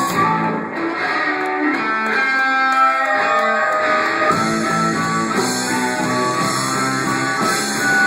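Music led by a guitar playing a melody line, loud and steady throughout.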